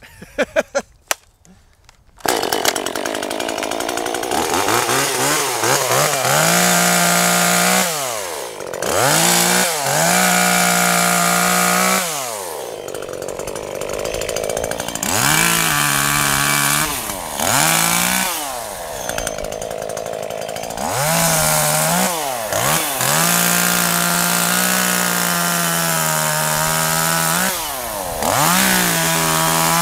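Husqvarna T525 top-handle two-stroke chainsaw with an Oregon Speed Cut nano chain, started after a few pulls of the starter cord and catching about two seconds in. It then runs through a series of cuts in branches, revving high and dropping in pitch under load in each cut before rising again.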